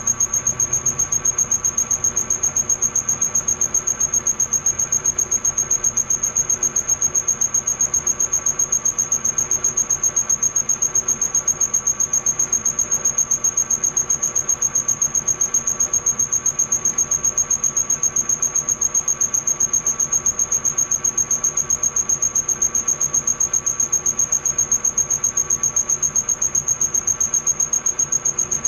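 Milling machine cutter cutting a valve relief into an aluminium piston: a steady high-pitched squeal with a fast, even pulsing from the rotating cut.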